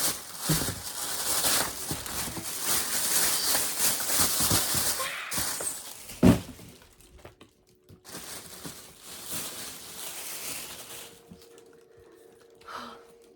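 Packaging crinkling and rustling as it is handled and torn open, with one loud thump about six seconds in, then quieter rustling.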